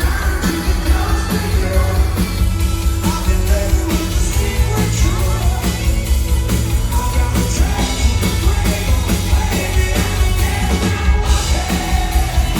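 Live rock band playing loud, with singing and yelling over a steady drum beat.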